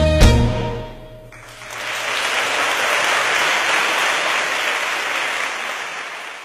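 The band closes the song with a final hit and a held note that rings for about a second, then the audience applauds steadily, fading out near the end.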